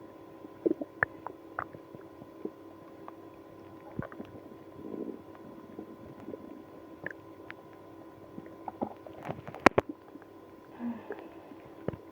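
Human stomach and bowel gurgling in someone with IBS after drinking milk and prune juice: irregular short squeaks, pops and gurgles over a steady background hum, with a sharp click about ten seconds in.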